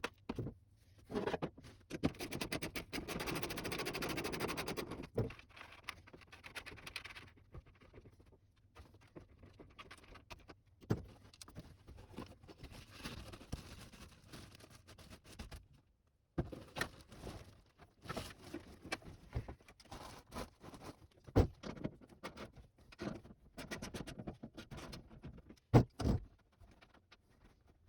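Intermittent handling noise: clicks, taps and scraping, with a denser rustling stretch from about two to five seconds in and two sharp knocks close together near the end.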